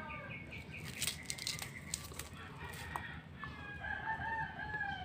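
A rooster crowing: a few short quick notes at the start, then one long drawn-out crow near the end. A few faint clicks come in between.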